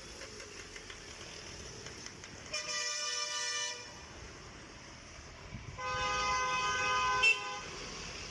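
Two long vehicle horn blasts over a steady traffic-like hiss, about a second apart, as in a street-ambience sound effect. A sharp click near the end of the second blast is the loudest moment.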